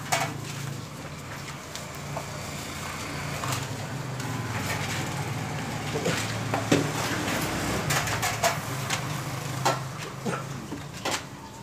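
A motor vehicle engine running on the street, a steady low hum that swells over several seconds and fades near the end, with scattered sharp clicks and knocks nearby.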